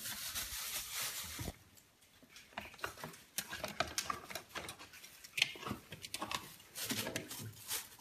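A baby raccoon rummaging in a refrigerator: scattered rustles, taps and crinkles as it paws at food packages and shelves. A steady hiss cuts off about a second and a half in.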